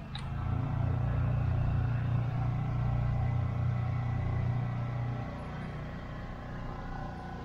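A boat's engine running steadily under way: a low, even drone that eases off a little about five seconds in.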